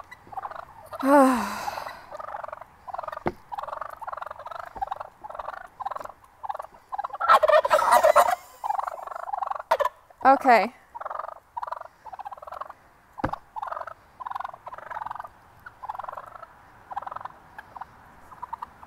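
Two young male wild turkeys (jakes) calling repeatedly in short calls at close range, with louder gobbles about a second in and again around seven to eight seconds. These are the calls of aggressive jakes confronting a person, one of them strutting.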